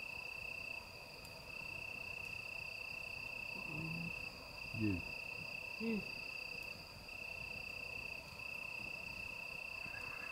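Crickets trilling in one steady, high-pitched unbroken trill that drops out briefly a few times. A few short, low, voice-like sounds come around the middle.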